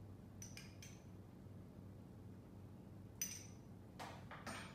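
A few light clinks of a small metal spoon and glassware, then a couple of dull knocks near the end as things are set down on the bar counter.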